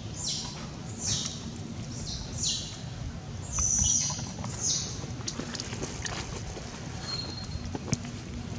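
A bird's short, high chirps, each falling in pitch, repeating about once a second and stopping about five seconds in; after that only faint clicks and taps.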